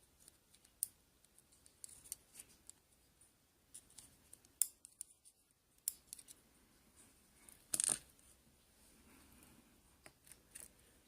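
Faint, scattered small metallic clicks and taps of tiny lock pins and springs being handled, with a louder rattle just before eight seconds in.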